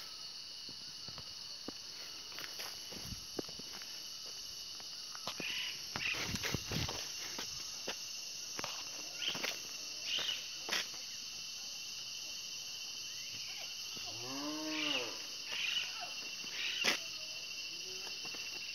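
Steady high chirring of crickets, with a single bleat from a three-month-old Kashmiri goat kid about three-quarters of the way through, rising then falling in pitch. A few short clicks and knocks are scattered throughout.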